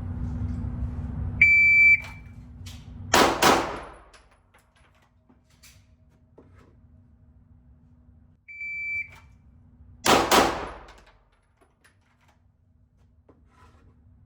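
An electronic shot timer beeps, then about a second and a half later a handgun fires two quick shots, a double tap, ringing in the indoor range. The same beep and two-shot pair comes again about seven seconds later.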